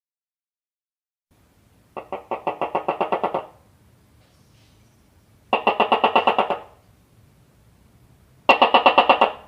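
Gecko chirping: three runs of quick, clicking chirps, about eight a second, each run lasting a second or so with quiet gaps between.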